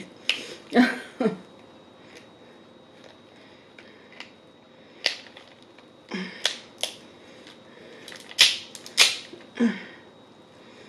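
Crab shell being cracked and pulled apart by hand: a scattered series of sharp cracks and snaps, the loudest pair near the end, with some wet mouth sounds in between.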